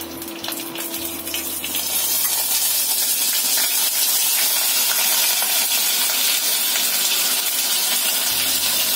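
Onion paste sizzling in hot oil in a kadai as it is spooned out of a cup, with a few light spoon clicks on the cup. The sizzle swells about two seconds in and then holds steady.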